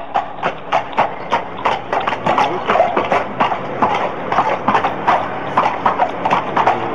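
Horses' hooves striking a paved road at a walk: a steady, even clip-clop of about three hoof strikes a second.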